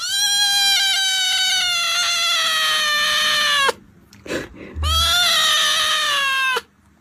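Kitten meowing: two long, high meows. The first lasts over three seconds and slowly sinks in pitch. The second starts about a second later and is shorter.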